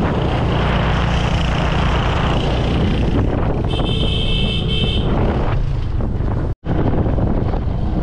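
Motorcycle engine running under load as the bike rides along a rough dirt road, with wind buffeting the microphone. A brief high-pitched tone sounds for about a second around four seconds in, and the sound drops out for an instant near the end.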